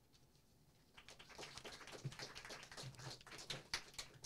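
Light, scattered applause from a small audience, many uneven claps starting about a second in.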